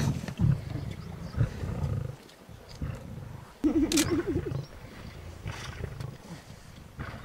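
Lions growling low as they feed together on a kill, with a louder wavering growl about four seconds in.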